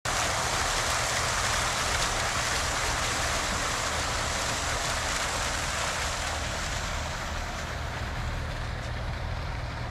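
Fountain jets splashing steadily into a stone basin, a continuous rushing hiss over a low rumble, easing slightly in the last few seconds.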